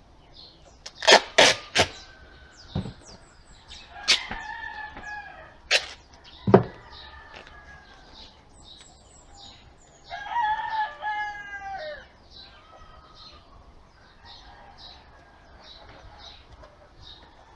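A rooster crowing, one long crow about ten seconds in that falls in pitch at the end, among shorter falling chicken calls. Sharp clicks and knocks, the loudest sounds, come in a quick cluster about a second in and singly a few seconds later.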